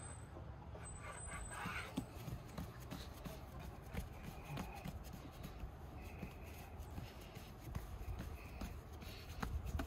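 Faint, irregular soft taps and pats of hands pressing and flattening a round of floured dough on a wooden board, over a low steady background rumble.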